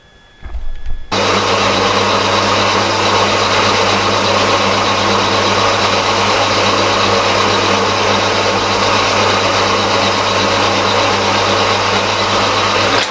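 Horizontal metal-cutting bandsaw starting about a second in and running steadily, its blade cutting a metal block clamped in the vise: a steady motor hum under a dense, even cutting noise.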